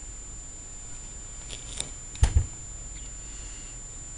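Desktop computer running at start-up with a steady low hum and a thin steady high whine, a few light clicks, then a heavy double thump a little past halfway, the loudest sound.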